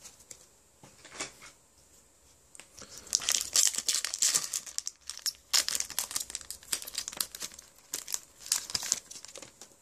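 Foil wrapper of a Pokémon Phantom Forces booster pack crinkling as it is handled and torn open. The crinkling starts about three seconds in and goes on in irregular crackles.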